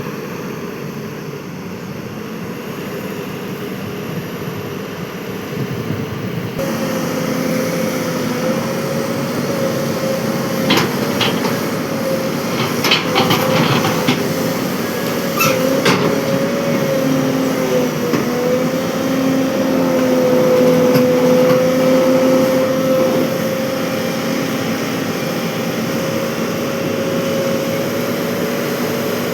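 Excavator engine running steadily under work, with a held whine over its drone that grows louder about seven seconds in. A run of sharp knocks and clanks comes in the middle.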